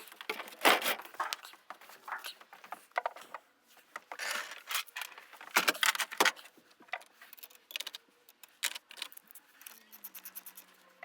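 Irregular clinks, knocks and scrapes of hard objects being handled, several a second with short gaps. A low steady hum comes in near the end.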